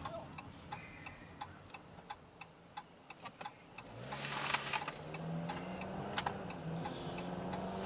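Car turn-signal indicator ticking steadily, about two clicks a second, while waiting to turn at a light. About four seconds in, the engine note rises as the car pulls away through the turn, with a short rush of noise.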